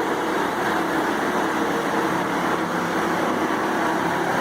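Morbark drum chipper running steadily: a constant engine drone with a broad, even noise layered over it.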